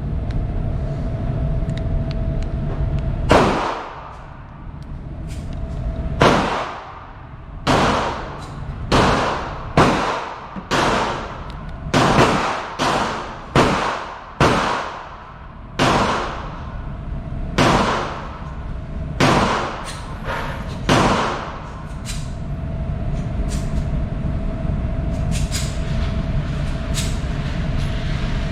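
A string of about fifteen gunshots at an uneven pace, one every half second to two seconds over some eighteen seconds, each shot ringing off after it. A steady hum runs underneath.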